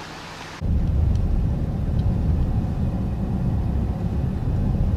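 Low, noisy rumble that starts abruptly about half a second in and then runs on steadily.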